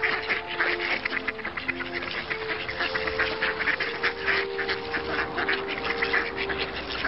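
Ducks quacking rapidly, several quacks a second and overlapping, over soft background music of held notes.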